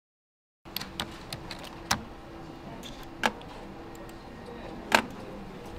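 Silence, then a steady low room hum with scattered sharp clicks of a computer keyboard being typed on. The clicks are irregular, a few at a time, with the loudest about two, three and five seconds in.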